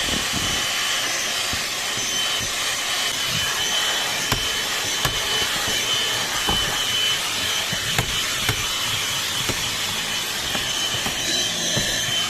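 Bauer cordless handheld vacuum running steadily with a high motor whine as it is worked over car carpet, with scattered short knocks and scrapes from the nozzle against the floor and trim.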